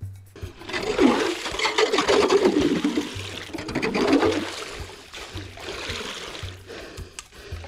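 Hand-cranked ice auger drilling through lake ice, its blades grinding and scraping. The noise is loudest over the first four seconds or so and eases off after about four and a half seconds.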